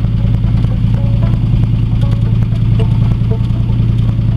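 Car engine running steadily under way, a low drone heard from inside the cabin.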